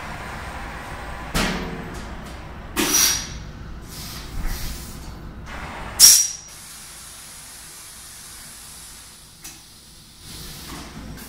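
Pneumatic drum lifter venting compressed air: several short, sharp hisses as its controls and drum gripper are worked, the loudest about six seconds in, then a quieter steady hiss of air for a few seconds.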